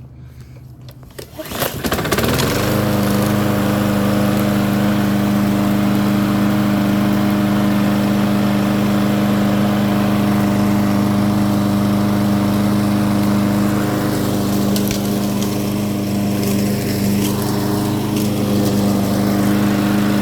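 Troy-Bilt walk-behind lawn mower's small petrol engine starting about two seconds in, then running steadily at one constant speed. It runs smoothly on its newly fitted blade, with no vibration.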